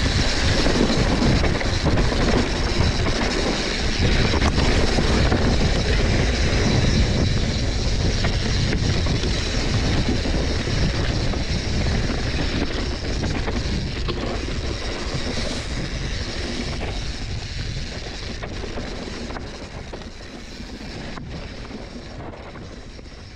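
Mountain bike rattling down a rough, rocky trail: tyres drumming over rocks and roots and the bike clattering in a dense, continuous racket. It grows quieter over the last few seconds.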